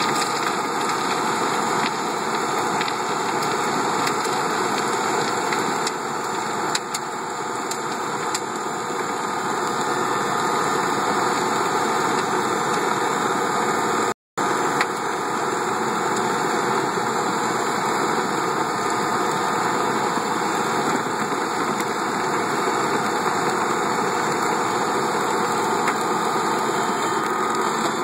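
Compact tractor's engine running steadily under load, driving a Lewis chain drainage trencher that cuts a narrow trench and carries the soil up its elevator. A thin steady high tone runs through the noise, and the sound drops out for a moment about halfway.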